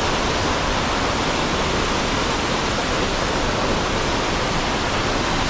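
Konaka Ōtaki waterfall roaring: a steady, dense rush of falling water.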